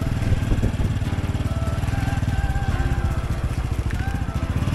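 Honda Super Cub's single-cylinder four-stroke engine running at low speed under the rider, a steady throb as the bike rolls slowly in to park.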